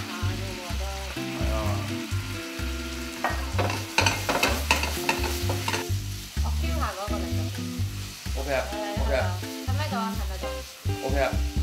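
Glazed vegetables sizzling in butter in a nonstick frying pan, being stirred and tossed, with a few sharp clacks of the pan and utensil about four to five seconds in. The butter-sugar-water glaze is being cooked down until the water has boiled off.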